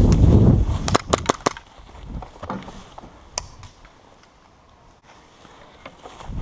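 Airsoft guns firing: a quick string of sharp snaps about a second in, then a few single snaps spread apart. A low rumble of movement noise on the microphone fills the first second.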